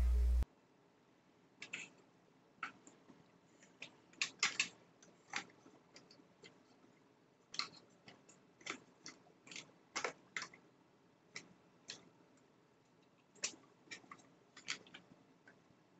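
Scattered clicks and light taps of a cordless screwdriver's plastic battery pack housing being handled and pressed together by hand, irregular, with a few louder clicks around the middle. A louder sound cuts off about half a second in.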